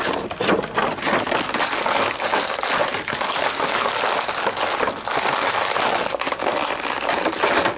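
Action-figure packaging being handled and opened up close: steady rustling and crinkling with many small crackles and clicks.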